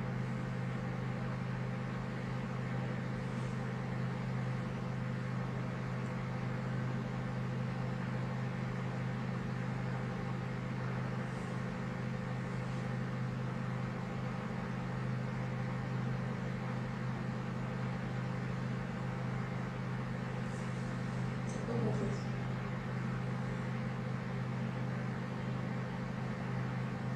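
Steady low machine hum that holds at an even level, with no break or change.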